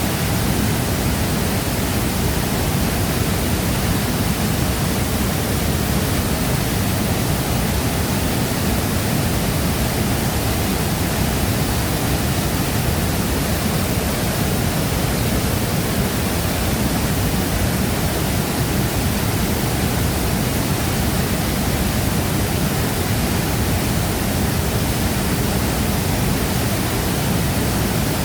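Large waterfall crashing steadily into its plunge pool: a dense, unbroken rush of falling water, heaviest in the low rumble, with no change throughout.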